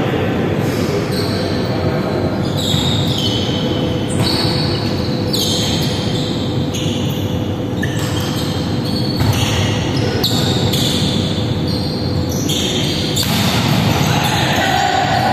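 Indoor volleyball being played in an echoing sports hall: sudden knocks of the ball being hit and many short high squeaks of shoes on the wooden court, over a steady hum.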